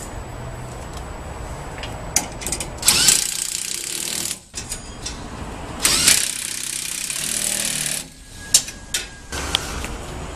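Cordless impact gun running in two bursts, the first about a second and a half long and the second about two seconds, tightening the roller bolts on helper-spring shackles. A few sharp metallic clicks fall between and after the bursts.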